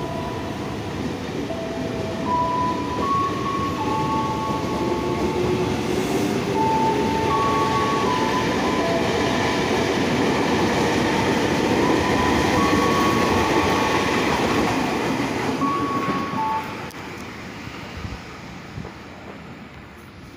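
KRL Commuterline electric train pulling out of the station and running past, wheels and motors rumbling, with a slowly rising motor whine and high steady tones that step between a few pitches. The noise drops away at about 16 seconds as the last car clears, leaving a fading rumble.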